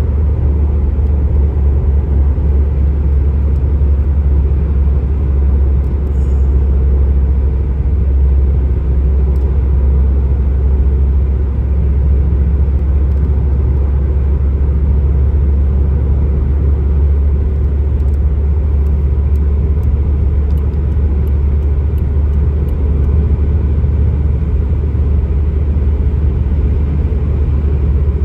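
Steady low road rumble inside a Subaru WRX's cabin as it cruises at highway speed: tyre and engine noise with no changes.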